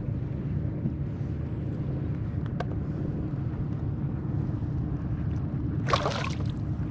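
A boat motor running steadily, a low even hum. A short, sharp noisy burst comes about six seconds in.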